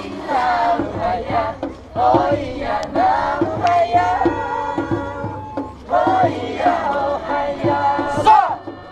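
Taiwanese folk dance group chanting and singing together in a loud rhythmic chant, with men's voices, over a steady, evenly spaced beat.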